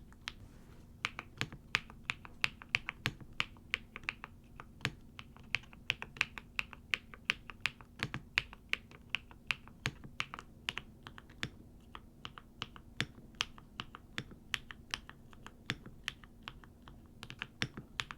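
Typing on a Neo75 Cu mechanical keyboard: a steady run of sharp keystroke clacks, several a second, with a couple of brief pauses.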